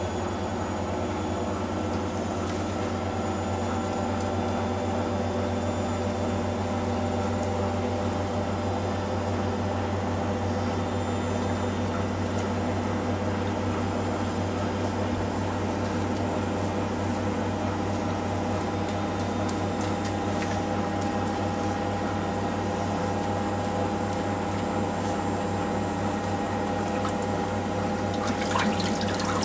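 A machine's steady hum with several fixed tones, like a small motor or pump running. Near the end, water starts running.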